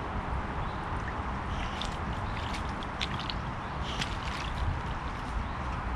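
A boxer dog splashing in a shallow rainwater puddle, its legs and muzzle sloshing the water as it noses a ball about. There is a run of small splashes and drips from about a second and a half in until past the middle, over a steady low background noise.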